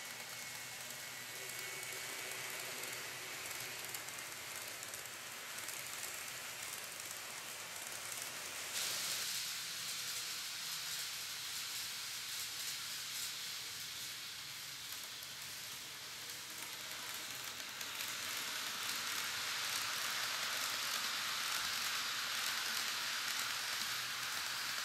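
N-scale model train running on track: a steady rushing hiss of wheels and running gear. The sound changes abruptly about nine seconds in, then grows louder over the last several seconds.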